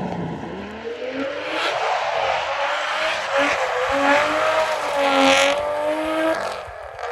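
Drift car doing donuts on rough asphalt. The engine is held high in the revs, rising about a second in and then wavering up and down as the throttle is worked, over the screech of the sliding rear tyres.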